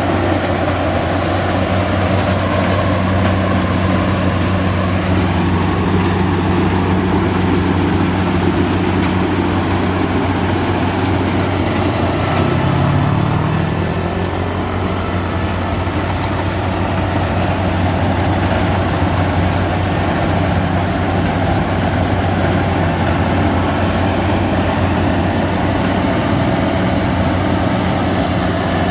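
Crown Sumo rice combine harvester running steadily while cutting and threshing rice, with a continuous engine and machinery drone. The engine note wavers briefly about halfway through.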